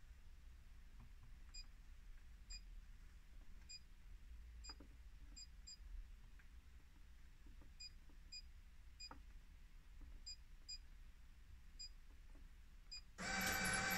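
Bus destination blind's drive motor starting abruptly about a second before the end, a loud steady whine as the Power Blind begins scrolling. Before that the blind is still and there are only faint, short high pips at irregular intervals.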